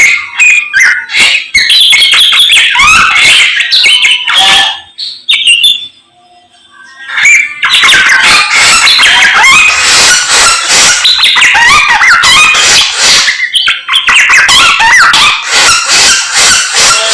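Samyong bird singing a loud, fast, chattering song of quick rising and falling notes, breaking off for about two seconds a third of the way through before resuming.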